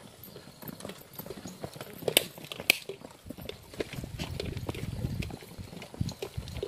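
Footsteps of people walking along a path, an irregular run of short steps and clicks, with two sharper clicks a little past two seconds in and a low rumble in the second half.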